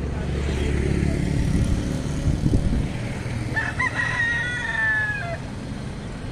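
White leghorn rooster crowing once, a call of nearly two seconds starting about halfway through and dropping in pitch at its end. A low rumble fills the first half.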